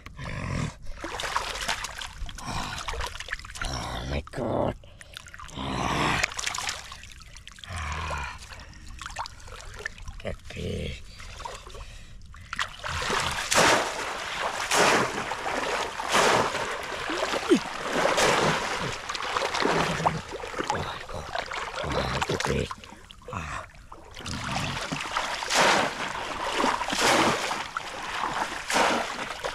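Shallow water splashing and sloshing as a conical bamboo polo basket trap is plunged again and again into flooded paddy water to trap fish. It is quieter and irregular at first, then from about halfway a steady run of splashes comes roughly once a second.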